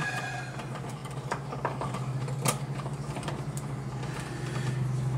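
Scattered light clicks and taps of pliers on copper ground wire as the wire is bent around a receptacle's ground terminal, over a steady low hum.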